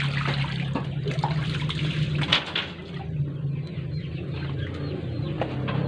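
Water running and splashing, with a steady low hum underneath and a few light knocks.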